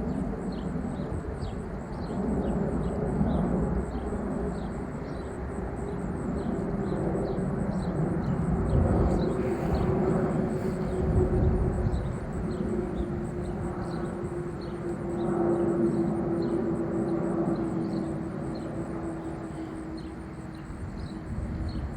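McDonnell Douglas MD-11F freighter jet passing overhead on approach: a broad engine rumble that swells and fades, with a steady whine that slowly drops in pitch as it goes by.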